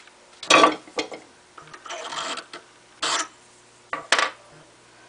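A handful of short metallic clanks and scrapes from metal parts being handled at a wood lathe's headstock, spaced about a second apart, over a faint steady hum.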